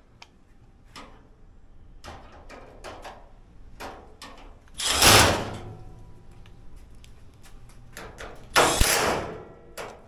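Clicks and knocks of parts being handled, with two louder, longer noisy bursts about five seconds in and near the end.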